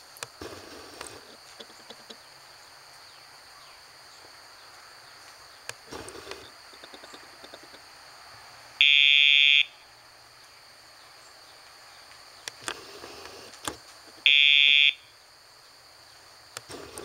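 Dogtra pager collar's sound box buzzing twice, about nine and fourteen seconds in, each a steady buzz of under a second, marking the pager's vibration sent to the dog as the handler turns. Low outdoor background with a few short knocks and rustles between the buzzes.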